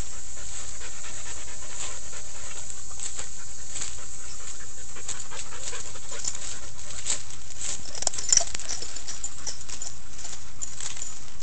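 A dog panting, with many short scratchy clicks and rustles throughout and a couple of sharper knocks about eight seconds in.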